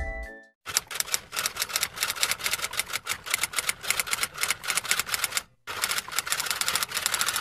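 Rapid, irregular clacking of typewriter keys, an edited-in sound effect with no road or engine noise beneath it. It comes in two runs broken by a short pause about five and a half seconds in.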